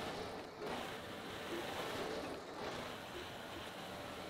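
John Deere 325G compact track loader running steadily as it moves off across the field pushing a Harley rake over loose dirt. It is a fairly faint, even engine hum with a low rumbling noise.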